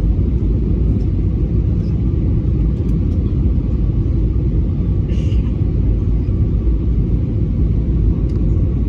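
Steady low rumble inside the cabin of an Airbus A320neo on approach: the CFM LEAP-1A engines and the airflow over the fuselage, heard from a window seat behind the wing.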